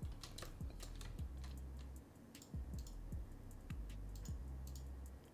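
Scattered, irregular clicks of a computer mouse and keyboard during image editing, over quiet background music with a low beat.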